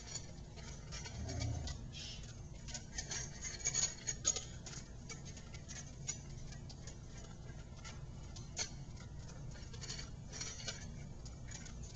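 Puppy eating dry kibble from a stainless steel bowl: irregular crunching and clicking of kibble and teeth against the metal, loudest about four seconds in.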